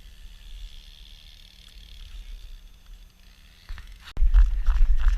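Faint steady hiss, then about four seconds in a sudden loud low rumble with a quick run of clicks and scrapes, as of something being moved or handled close to the microphone.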